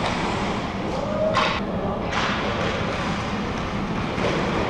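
Ice hockey rink ambience: the steady din of an indoor arena, with one short, sharp scrape or knock about one and a half seconds in.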